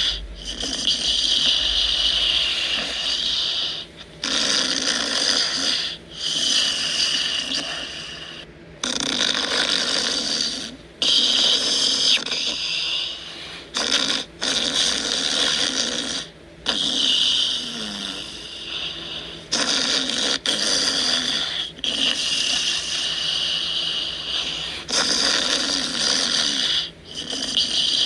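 Yorkshire terrier snoring in a steady rhythm, one drawn-out, hissy snore about every two to three seconds with short pauses between breaths.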